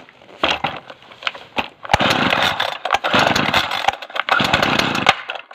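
A string trimmer (whipper snipper) being pull-started: repeated tugs on the starter cord, the engine turning over and sputtering in rough bursts about a second long, then cutting out suddenly without staying running.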